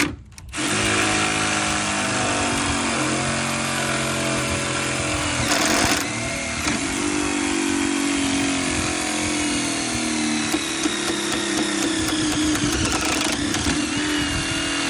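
Drill boring a long auger bit through a hollow, cross-braced 6x6 post, running steadily under load with its motor pitch shifting as it cuts. It starts after a brief drop right at the beginning, with a short, harsher burst about six seconds in.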